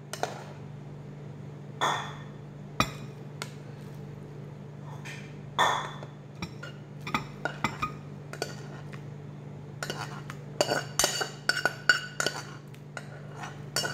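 A cooking pot and serving utensil knocking and clinking against ceramic bowls as noodles are dished out: scattered knocks at first, then a quick run of ringing clinks from about ten seconds in. A steady low hum runs underneath.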